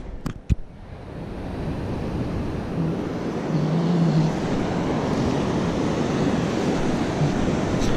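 Steady wash of surf with wind buffeting the microphone, after a few sharp knocks in the first half second.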